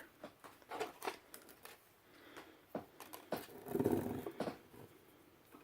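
Light taps and clicks of a soldering iron and solder being handled at a workbench, with a short, low murmured sound about four seconds in.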